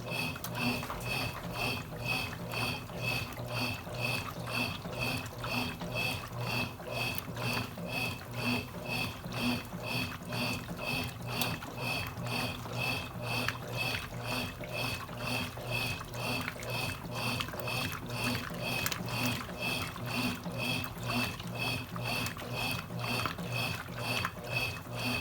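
Consul Cargo 8 kg washing machine running with water in the drum, sloshing and pouring in an even rhythm of about two strokes a second, as in an agitation cycle.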